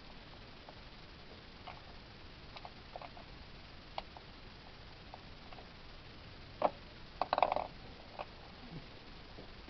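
Scattered light clicks of a hand ratchet and tools as bolts are snugged down into the plastic intake manifold, with a louder cluster of clicks about seven seconds in.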